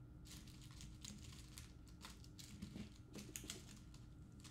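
Faint, scattered light clicks and rustling of breadboard jumper wires being sorted through by hand.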